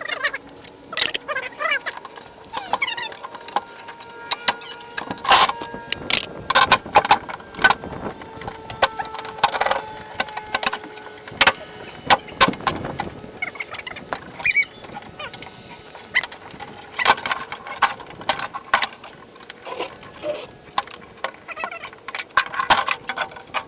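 Irregular clicks, clacks and light metallic clatter of hand work on a car body: wiring, connectors and trim being pulled out of a Honda Accord's rear end.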